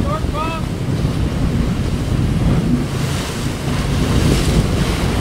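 Sportfishing boat's engines running with water churning and splashing at the stern, and wind buffeting the microphone; spray hiss picks up about three seconds in.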